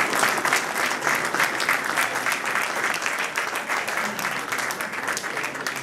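Audience applauding, a dense patter of many hands clapping that slowly fades toward the end.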